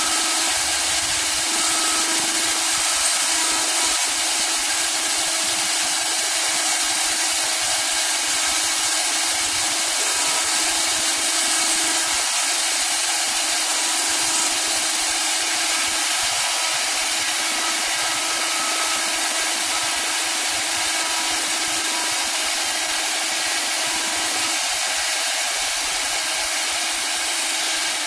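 Three-head CNC wood lathe's router spindles engraving patterns into turning wooden balusters: a steady machine hum under a loud, even hiss of cutting wood.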